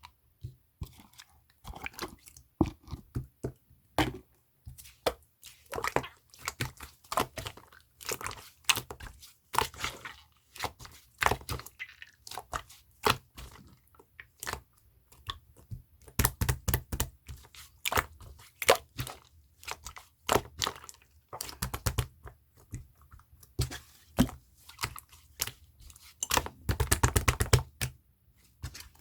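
Clear slime being squeezed and pressed by hand, making irregular sticky clicks and pops, with a fast run of pops near the end.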